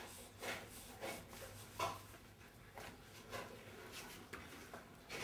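Soft, irregular rustling and rubbing of cotton clothing against a floor mat during a hands-on massage, as the man's back is pressed and his legs are bent up, with about half a dozen short rustles.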